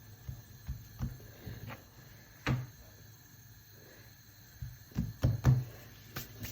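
Scattered soft knocks and taps of kitchen handling, about ten in all, with a louder cluster of three or four about five seconds in.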